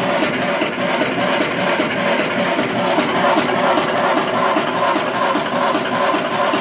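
Home-built electric drum coffee roaster running: the motor turns the drum with a steady mechanical whir and a repeating rubbing noise. The noise comes from the shaft collar, which rubs because the drum has no proper bearing shaft.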